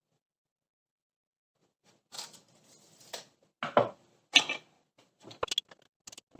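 PVC pipe and fittings being handled: a few short scrapes, then two louder knocks of hard plastic, then some light clicks.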